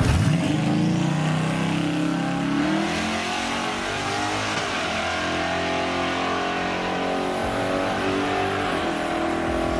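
Twin-turbo LSX V8 of a Chevrolet Caprice Landau accelerating hard down a drag strip, its note climbing in pitch and dropping back at each gear shift as it pulls away.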